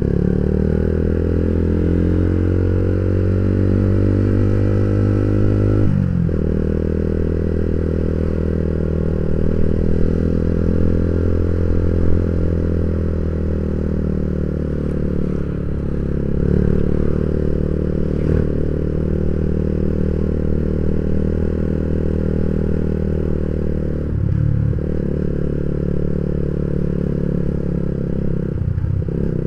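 Yamaha Vixion single-cylinder four-stroke motorcycle engine running under way as the bike is ridden. The note is steady, with a few brief breaks where the pitch shifts, about six seconds in, near the three-quarter mark and again at the end.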